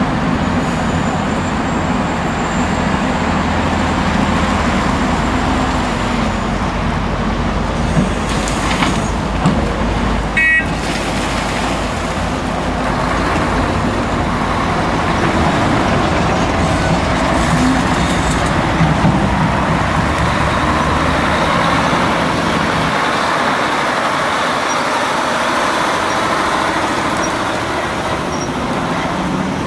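Diesel engines of a Hitachi Zaxis 500LC excavator and a Mercedes-Benz Actros dump truck running steadily while the excavator loads earth into the truck, with a short sharp knock about ten seconds in.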